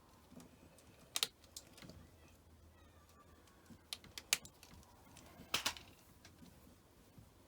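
A handful of sharp, irregular clicks and taps from small plastic and metal parts being handled while cable connectors are fitted. The loudest come about a second in and a little past halfway.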